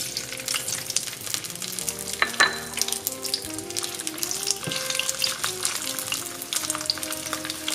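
Vegan shrimp hitting hot oil in a wok and sizzling with a dense crackle from the first moment, while a wooden spatula pushes them around in the shallow oil.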